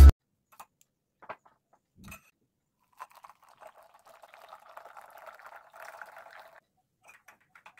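A thin stream of water poured into a glass mug to make black coffee, a faint steady trickle that starts about three seconds in and stops near the end. A few faint ticks come before it.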